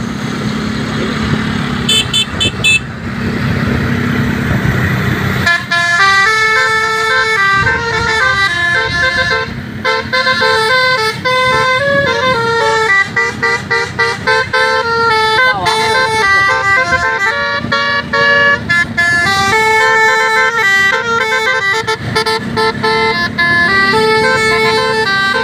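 Bus telolet horn, a Basuri multi-tone horn, playing melodic runs of steady tones that jump from pitch to pitch, from about five seconds in. Before that there is a noisy stretch with a few short high beeps.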